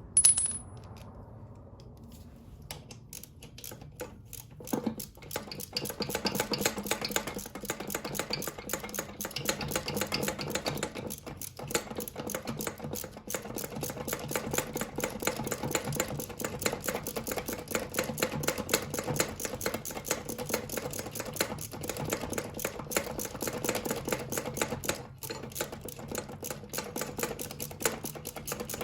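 Ratchet wrench clicking rapidly and continuously as bolts are run in on the engine, stopping briefly a couple of times. A sharp metal clink sounds just at the start.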